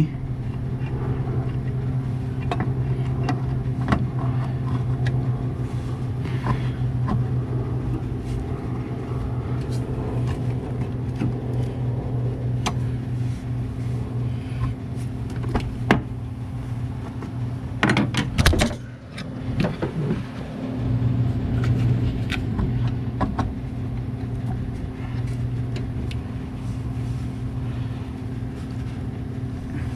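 A steady low motor hum, with scattered light clicks and knocks as a brake master cylinder is handled and set onto the booster studs, and a short louder clatter about eighteen seconds in.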